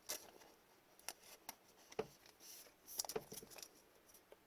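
Trading cards being handled: light clicks, taps and rustles of card stock as cards are slid, flipped and set down.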